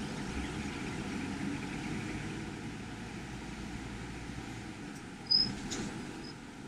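Steady engine and cab noise inside a Class A motorhome rolling slowly, heard from the cab. A short, sharp high-pitched chirp about five seconds in.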